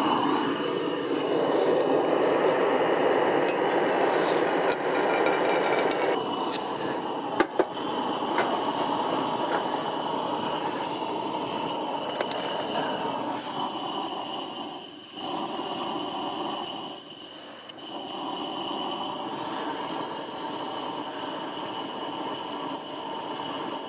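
Small propane camp burner running with a steady hiss, briefly dropping out twice around 15 and 17 seconds in, with a single clink about 7 seconds in. The burner is 'wigging out', which the owner puts down to liquid propane coming through the line from the small cylinder.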